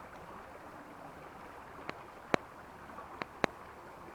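Creek water rushing steadily, with four sharp knocks in the second half.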